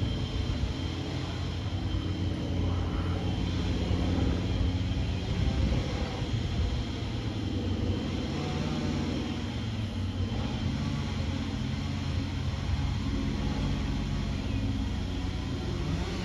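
Small propeller aircraft flying overhead, its engine running steadily throughout.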